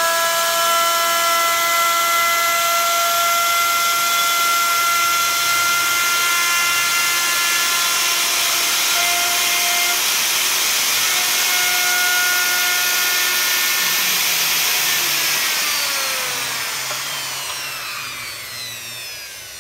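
Dongcheng electric plunge router running at full speed, its bit cutting a groove along a wooden strip, with a steady high whine. Near the end it is switched off and winds down, its pitch falling as it fades.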